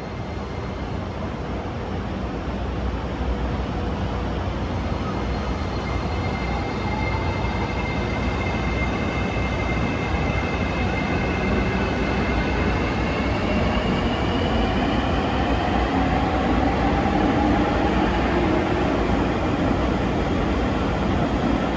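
An electric train grows steadily louder over about fifteen seconds, its motor whine rising in pitch over the rumble of the wheels.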